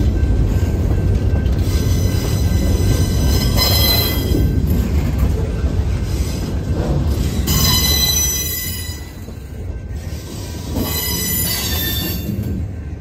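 Freight cars (boxcars and covered hoppers) rolling past close by: a steady low rumble of steel wheels on rail, with high-pitched wheel squeal rising several times, about four seconds in, around eight seconds and again near the end.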